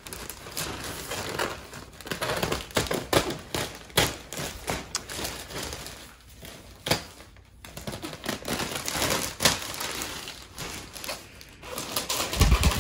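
Scissors cutting through the thick plastic sheeting wrapped around a Christmas tree: irregular snips and clicks of the blades with the plastic crinkling, and a dull thump near the end as the plastic is pulled back.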